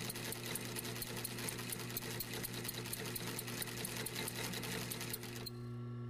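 Industrial sewing machine stitching at speed, a rapid even clatter of needle strokes over the steady hum of its motor. The stitching stops about five and a half seconds in, while the motor keeps humming.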